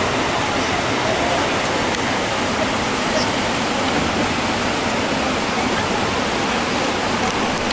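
River white water rushing steadily.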